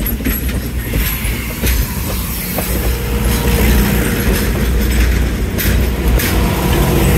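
Railway passenger cars rolling past at close range: a steady low rumble of steel wheels on rail, broken by irregular clicks and knocks from the trucks and rail joints.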